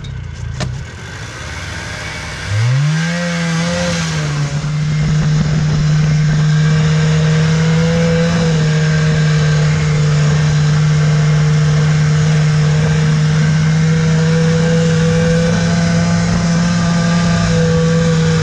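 1981 Yamaha Enticer 340 snowmobile's two-stroke engine revving up sharply about two and a half seconds in as it pulls away, then running at steady high revs under way.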